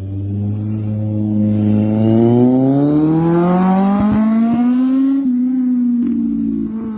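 Sport motorcycle engine accelerating, its pitch climbing steadily for about five seconds, then dropping slightly and easing off near the end.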